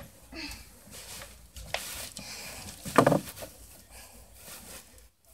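Bedding rustling and close handling noise from a phone as someone shifts around on a bed, with a louder bump about three seconds in.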